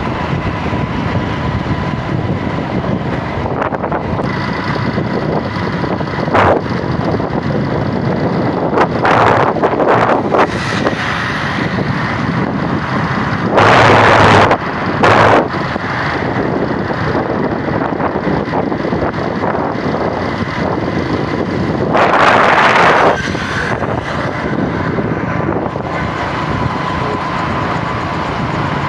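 Steady road-vehicle noise with wind buffeting the microphone while on the move, rising in two short louder rushes of noise, once about halfway through and again about three quarters in.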